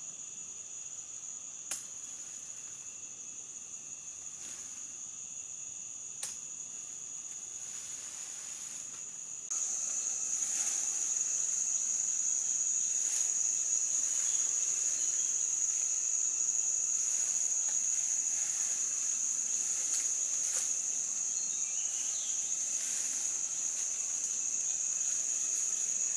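Insects trilling in one steady, high, continuous note, suddenly louder from about nine seconds in. Two faint clicks come in the first half.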